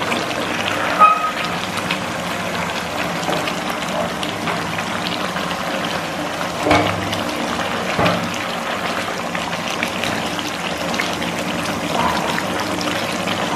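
Chicken and potato curry bubbling in a frying pan as it is stirred with a wooden spatula, with a few knocks of the spatula against the pan, about a second in and twice more near the middle.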